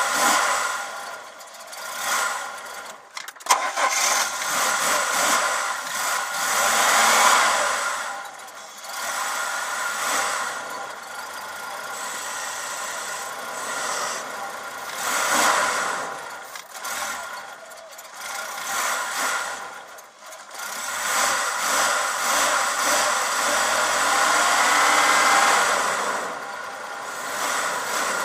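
Ford Fairmont ED car engine being revved up and down again and again, the throttle blipped to keep it running after a hard cold start. A single sharp crack about three and a half seconds in.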